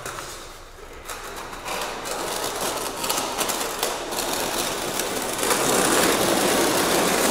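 Aluminium screed rule dragged through wet tile-adhesive mortar on a floor, a rough scraping that grows louder about five and a half seconds in.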